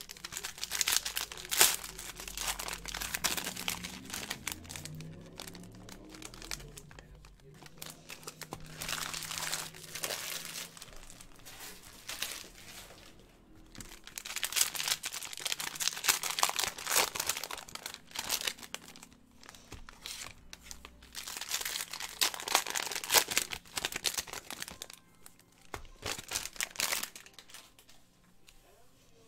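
Panini Prizm trading-card pack wrappers crinkling and tearing as packs are handled and opened, in several bursts of a few seconds each with quieter gaps between.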